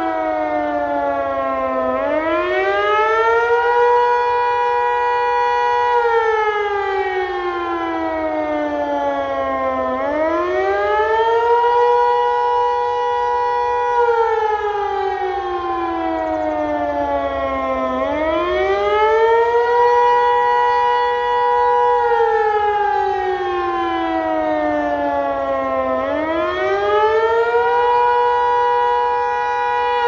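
Landert MSL-6 electromechanical civil-defence siren sounding Austria's "Alarm" signal, an up-and-down howl that warns of danger and calls people to seek shelter. The pitch rises quickly, holds for about two seconds, then falls slowly, once about every eight seconds, four rises in all.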